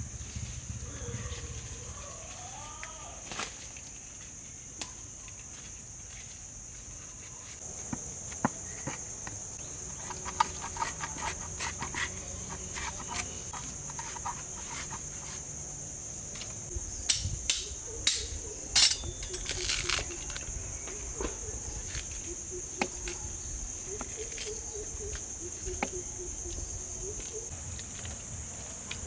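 Steady high-pitched insect drone, with scattered sharp clicks and knocks through the middle.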